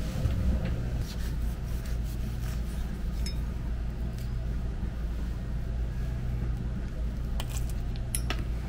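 Steady low hum, with a few light knife or tableware clicks near the end as an avocado is cut and handled.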